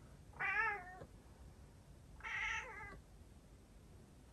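Calico cat meowing twice, two long plaintive cries about two seconds apart. The owner takes the crying as the cat wanting to go outside.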